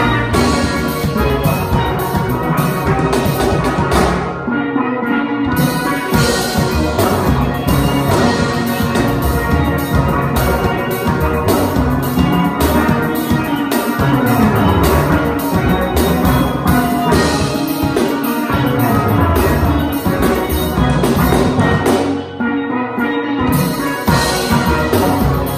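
Steel orchestra playing: steel pans, from the front-line pans down to the big bass drums, over a drum kit with cymbals.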